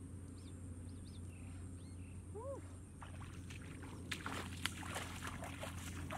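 Splashing and sloshing in shallow muddy water as someone wades along a flooded rice-field channel, irregular splashes starting about three seconds in. A few short chirps come before it.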